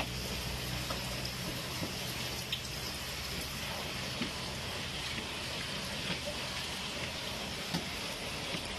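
Meat and broth boiling in a wok over a gas flame: a steady bubbling hiss with a few small scattered pops.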